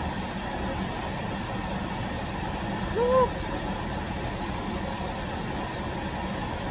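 Steady low running hum of a stationary car, heard inside its cabin. About three seconds in comes a brief hummed vocal sound that rises and falls.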